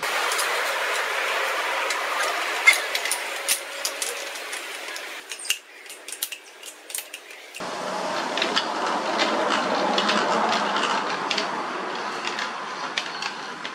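A homemade pedal gearbox built from angle-grinder bevel gears, spun by hand: a steady whirring rattle of meshing metal gears, with sharp clicks and clinks of metal parts. The whirring drops away about five seconds in, leaving scattered clinks, and starts again at about eight seconds.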